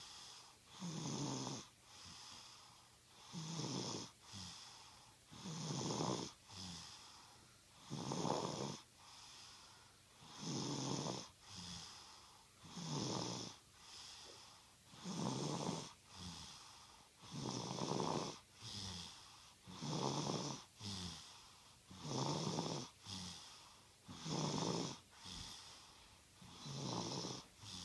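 A boy snoring in his sleep: a snore about every two and a half seconds, each followed by a shorter, softer breath, in a steady rhythm.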